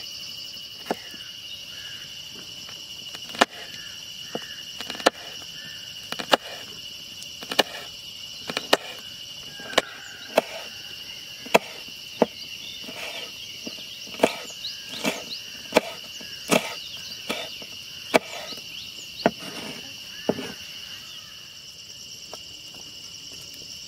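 Cutting strokes: kitchen scissors snipping ginger and a knife slicing green chilli against a wooden cutting board, sharp knocks about once a second that stop near the end. Steady high trilling of insects runs underneath.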